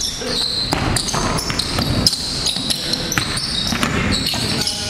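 Basketball being dribbled on a gym floor during game play, a run of sharp bounces with players' voices in the background, echoing in a gymnasium.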